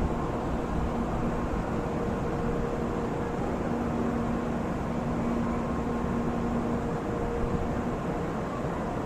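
Steady low rumbling noise with a faint held hum that fades in and out, the ambience of a station platform beside a standing electric train.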